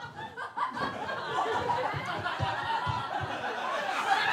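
Audience laughing and cheering, many voices overlapping, with a few low thumps in the middle.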